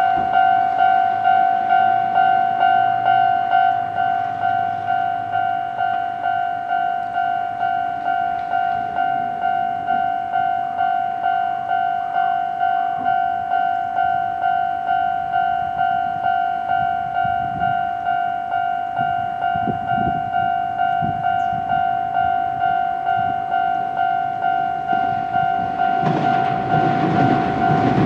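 Railway level crossing warning alarm ringing steadily, about two rings a second, signalling an approaching train. Near the end an Izuhakone Railway Sunzu Line train is heard rumbling closer.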